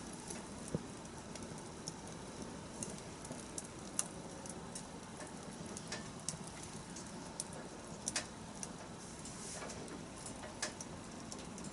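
Wood bonfire burning, with a low steady hiss and scattered sharp crackles and pops.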